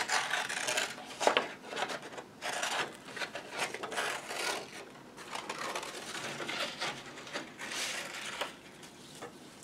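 Scissors cutting a circle out of a sheet of brown paper: an uneven run of short snipping, rasping strokes, with the paper rustling as it is turned.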